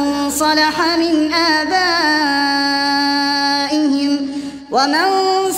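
A solo reciter chanting the Quran in melodic tajweed style, with ornamented turns and a long held note. The voice pauses briefly for a breath about four and a half seconds in, then starts a new phrase with a rising glide.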